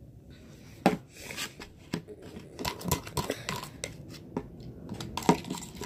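Homemade slime being kneaded and squished by hand, giving an irregular run of wet, sticky clicks and pops.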